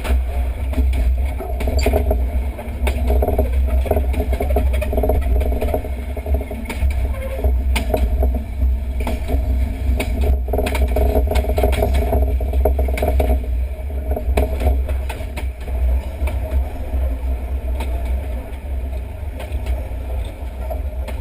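Moving ex-London Underground tube train heard from a microphone mounted on the outside of the train: heavy wind rumble on the mic, wheels clicking over rail joints, and a steady motor hum that weakens about thirteen seconds in.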